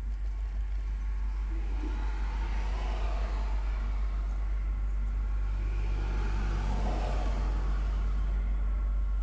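A string of Union Pacific SD70ACe diesel-electric locomotives running light, heard from a distance as a steady diesel drone and rumble. The sound swells twice, about two to three seconds in and again about six to seven seconds in.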